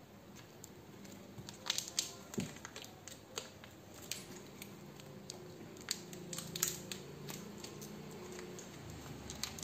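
Clear plastic bags around ink refill bottles crinkling and crackling as they are handled, in irregular sharp crackles that start about a second and a half in.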